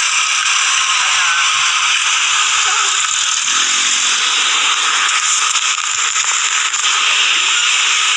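Floodwater of a swollen river rushing and churning, a loud steady rush of water.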